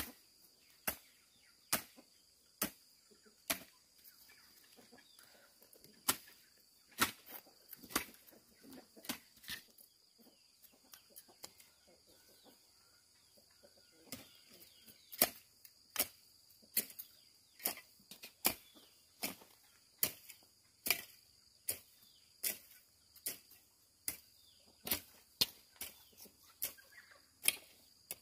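Steady run of sharp chopping strikes, a little more than one a second, briefly softer partway through, over a constant high insect buzz.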